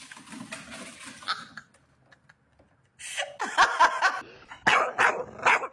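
A person laughing in a run of loud bursts, starting about three seconds in, after a few seconds of faint low noise.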